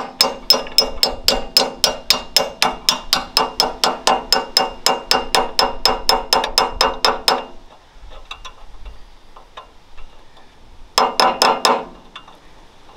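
Claw hammer tapping a steel offset alignment bushing into the upper ball joint bore of a Ford twin I-beam axle: quick, ringing metal-on-metal strikes, about four a second, for about seven and a half seconds. Then come a few light taps and, near the end, a short second run of quick strikes.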